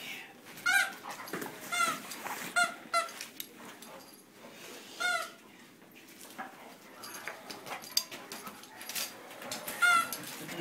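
A squeaky plush dog toy squeaked in short, irregular squeaks, about six of them, as a young dog chews and shakes it, with scattered light knocks and scuffles in between.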